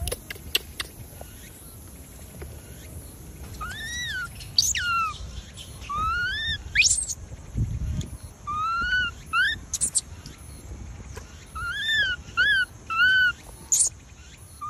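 Macaques calling: about ten short, clear-pitched coos that rise and fall, some in quick pairs, starting a few seconds in.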